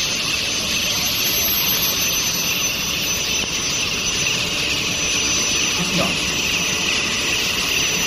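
Long-bar induction heat treatment line running: a steady hiss with a thin, high, steady whine over it.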